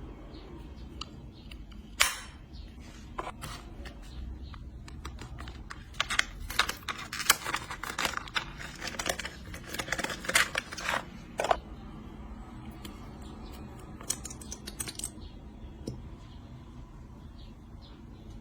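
Packaging being handled by hand: a sharp click about two seconds in, then several seconds of close crinkling and clicking, and a shorter burst of it near the end.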